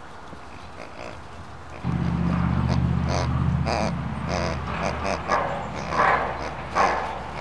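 German Shepherd puppies yipping and whining in play, short high sounds about once a second, over a steady low hum that comes in suddenly about two seconds in.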